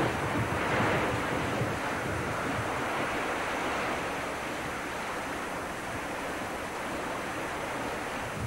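Steady rush of wind and breaking sea waves, a little louder about a second in.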